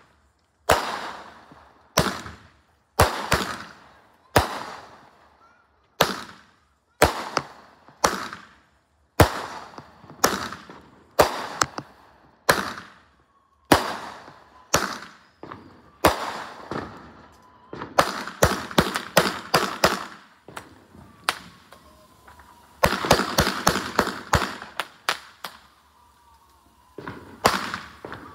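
Fireworks going off close by: a string of sharp bangs about once a second, each with a fading echo. About two-thirds of the way through and again near the end they thicken into rapid crackling volleys.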